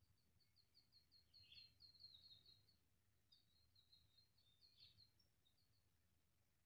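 Faint bird song: two phrases of rapid, high repeated notes, the second beginning about three seconds in, over a low steady background rumble.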